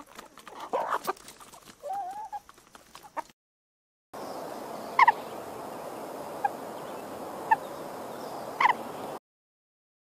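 Chickens clucking, with a short wavering call about two seconds in. After a brief silence comes a steady hiss with four short, sharp, high bird calls spaced about a second or so apart.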